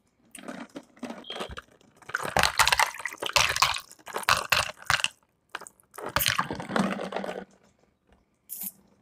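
A plastic bottle of flavored water being handled and drunk from: liquid sloshing and plastic handling noises in two stretches, the first about two seconds in and the second after a short pause.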